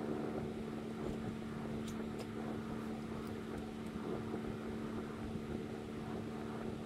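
Steady motor hum with a constant low tone, and a few faint light clicks about two seconds in, from metal parts being handled.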